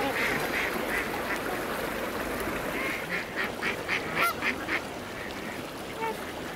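Birds calling: a quick run of about five short calls near the middle, with a few single calls around it, over a steady rushing noise.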